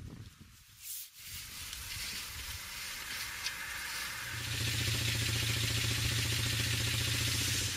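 Hissing, rustling outdoor noise, with a car engine running steadily from about four seconds in, a low even hum.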